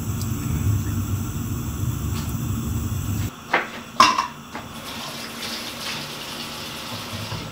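A steady low rumble, then two sharp knocks about three and a half and four seconds in, followed by a kitchen tap running into a stainless steel sink.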